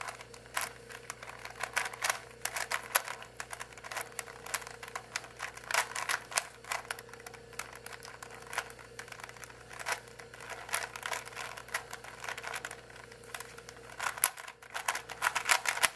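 Rubik's cube being turned quickly by hand during a solve: a rapid, irregular run of plastic clicks and clacks as the layers snap round, several turns a second.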